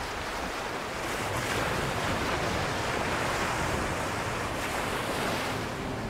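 Small waves washing up on a sandy beach: a steady rush of surf that swells slightly about a second in.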